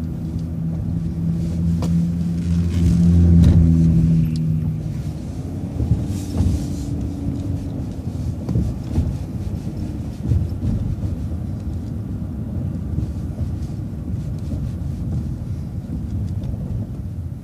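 City transit bus engine and road rumble while driving: the engine note builds to its loudest about three to four seconds in, then eases off into a steady low rumble, with a few knocks and rattles.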